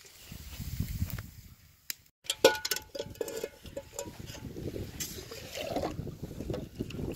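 A small metal pot with a wire handle is dipped into shallow lake water at the edge of the ice, and water gurgles and splashes into it as it fills. A sharp knock about two and a half seconds in is the loudest sound.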